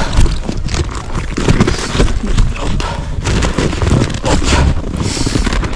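Loud rumbling and knocking on the microphone of a hand-held camera, from handling noise and wind, with many short knocks and rustles.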